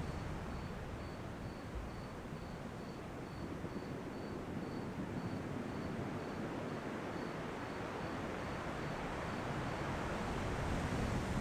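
Ocean surf rushing steadily, easing a little early on and swelling again near the end, with an insect chirping in a steady high pulse, about three chirps a second.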